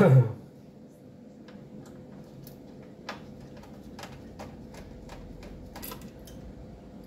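Scattered light clicks and taps of hands handling parts inside a metal mini PC case, after a brief vocal sound right at the start.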